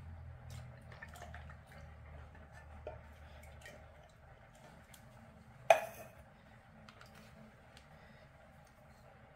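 Canned milk pouring into a plastic mixing bowl and being stirred with a silicone spatula: faint liquid sounds and soft scraping with small scattered taps. One sharp knock a little past halfway is the loudest sound.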